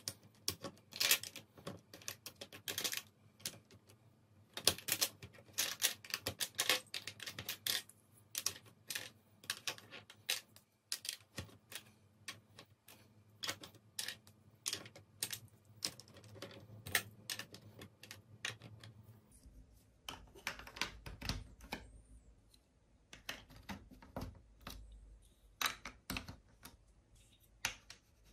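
Large plastic toy building blocks clicking and clacking as they are handled, set down and pressed onto a plastic baseplate: irregular sharp clicks, often in quick clusters. A faint low hum comes in about two-thirds of the way through.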